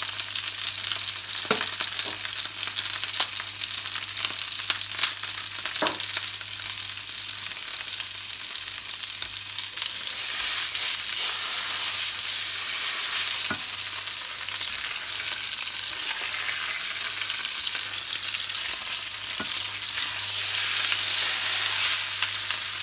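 Pork joint searing in a hot frying pan: a steady sizzle of fat that flares louder twice, about ten seconds in and again near the end, as the meat is turned onto a fresh side. A few light clicks of the fork against the meat and pan come through.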